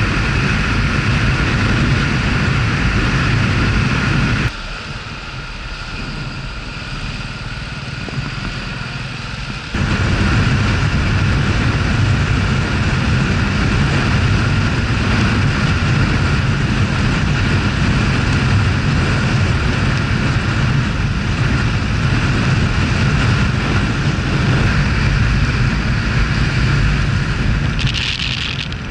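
Honda Super Cub 110's small single-cylinder engine running under way, with steady wind noise on the microphone. The sound drops suddenly to a quieter level a few seconds in, then comes back about five seconds later.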